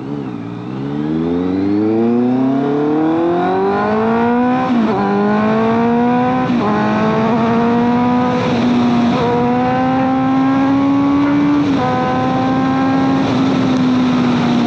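Honda CBR650F's inline-four engine accelerating from low revs. Its pitch climbs steadily and drops sharply at each upshift, several times, over a rush of wind and road noise.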